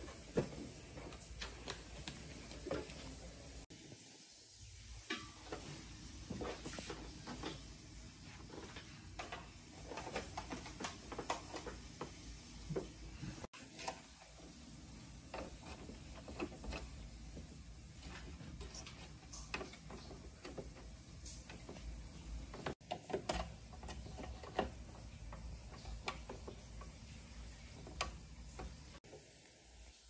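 Handling noise of cables being taken from a plastic bag and plugged into a computer monitor's rear ports: scattered clicks, taps and rustles.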